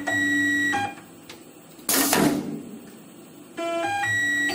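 Tormach Slant-Pro CNC lathe's axis drive jogging the gang tool slide: a steady motor whine with a high tone that steps in pitch as each move ramps up and down, in two moves, with a short burst of hiss about two seconds in.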